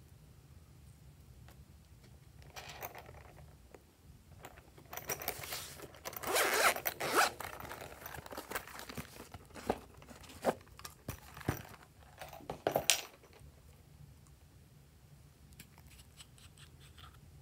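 Zipper being pulled open on a pencil case in several rough strokes, loudest about halfway through, followed by a few sharp clicks and taps.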